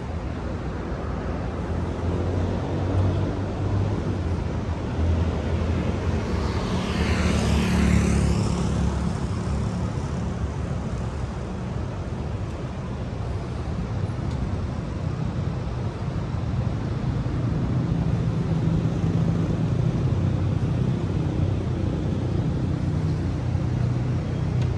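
City street traffic: engines and tyres of passing cars make a steady rumble. One vehicle passes close about seven seconds in, its sound rising and then falling away.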